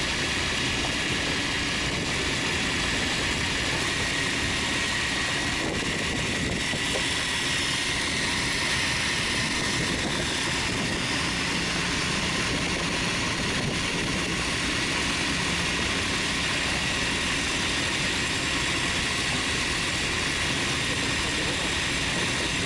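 A fishing boat's engine running steadily at idle, with a thin, steady high whine over the drone.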